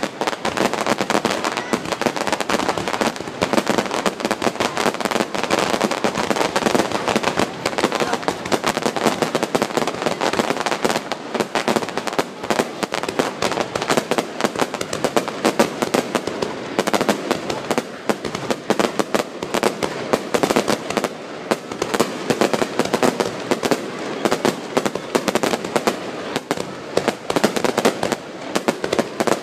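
Fireworks going off in a dense, unbroken barrage of crackling reports, many overlapping with no pause.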